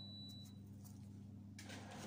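Quiet kitchen room tone with a steady low electrical hum, a brief faint high tone at the start, and rustling handling noise from about one and a half seconds in as things are moved about on the counter.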